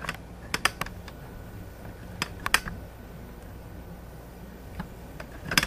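A handful of light clicks and taps as a rifle and bipod are handled and repositioned, over a steady low hum.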